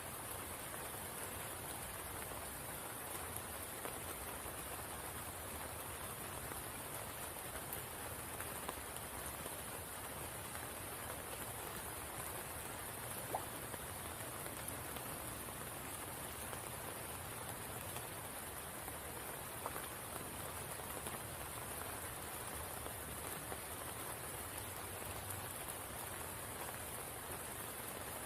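Steady rain falling on the water of a spring pool: an even hiss with a few sharper single drop ticks, the clearest about halfway through.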